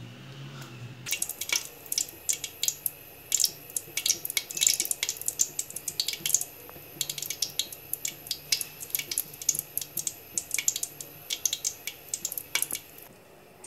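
Hot cooking oil crackling and spitting in a pan as it heats for frying pakoras: many sharp, irregular pops over a steady hiss. It starts about a second in and dies away near the end.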